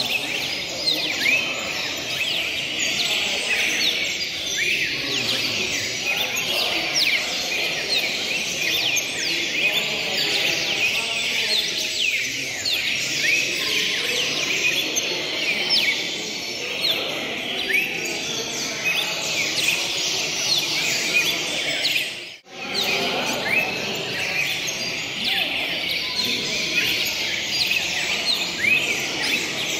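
Many caged songbirds singing at once, a dense chorus of overlapping chirps and trills over a low murmur. The sound drops out briefly about two-thirds of the way through.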